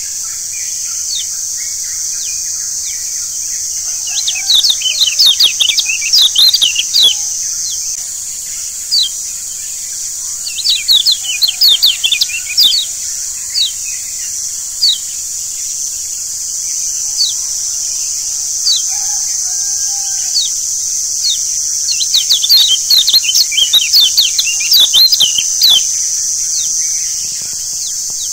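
Kecial kuning (a yellow white-eye) calling in fast runs of short, high chirps. There are three bouts, near the start, in the middle and near the end, with scattered single chirps between them, all over a steady high hiss.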